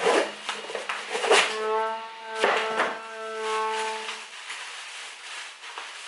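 A cardboard parcel is handled and opened and a plastic-wrapped part is pulled out, making several sharp rustles and scrapes. They play over background music with held notes that stops about two-thirds of the way through.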